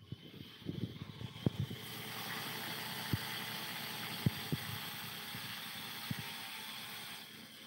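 Sawmill band saw blade cutting into a big log: after a couple of seconds of scattered knocks, a steady rushing hiss of the blade in the wood sets in and holds, with a few sharp knocks along the way.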